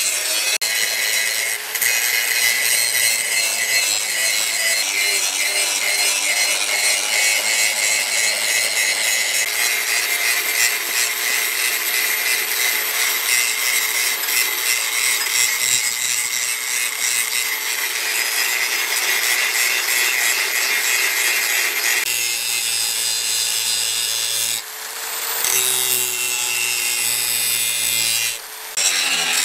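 Electric angle grinder running under load with an abrasive disc pressed into a steel leaf-spring axe blank: a steady high whine over a harsh grinding hiss. The tone shifts abruptly a few times and the sound breaks off briefly twice near the end.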